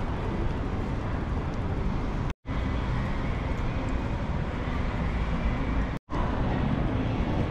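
Steady outdoor city ambience: a low rumble of street noise, cut to silence twice for an instant, about two and a half seconds in and again about six seconds in, where the recording is spliced.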